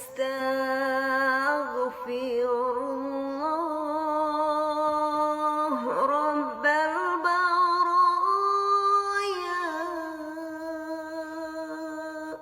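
A single voice singing a slow, drawn-out chant in long held notes with wavering, melismatic turns and gentle glides in pitch. The voice stops right at the end.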